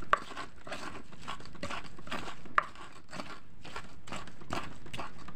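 Stone pestle grinding spice paste in a black stone mortar (ulekan and cobek): rapid repeated crushing and scraping strokes. Two sharp stone-on-stone knocks stand out, one at the very start and one about two and a half seconds in.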